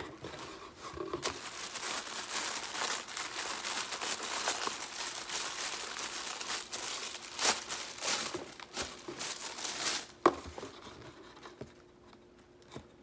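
Hands rummaging through crinkly white tissue-paper wrapping inside a cardboard box, a steady rustling and crinkling. There is a sharp tap about ten seconds in, and then the rustling dies down.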